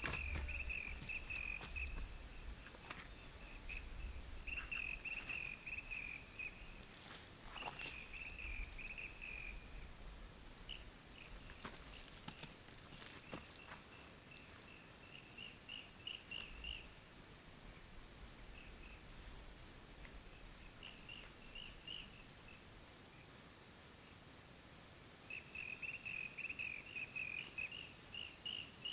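Outback insects: a high, cricket-like chirp repeating steadily about twice a second, with a lower buzzing trill that comes and goes. A little low wind rumble is mixed in near the start.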